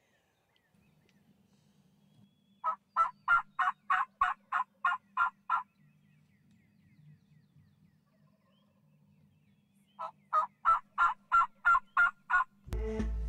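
Turkey yelping: two runs of evenly spaced yelps, about three a second, the first of about ten notes and the second of about eight after a pause of several seconds. Music cuts in abruptly near the end.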